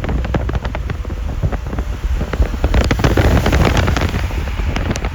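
Strong wind buffeting the microphone, a heavy low rumble that swells about three seconds in, with many irregular sharp taps and clicks throughout.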